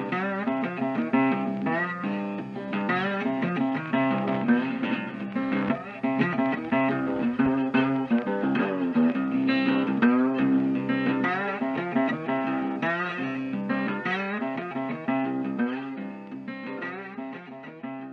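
Background music led by a plucked guitar playing quick runs of notes, fading out near the end.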